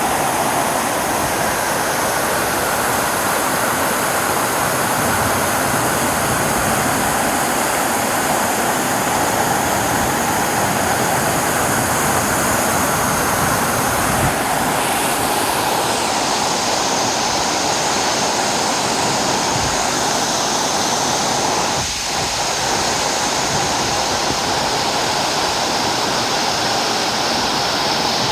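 Waterfall pouring steadily, a constant rush of falling water with no break. The higher hiss in it shifts about halfway through, and the sound dips briefly about two-thirds of the way in.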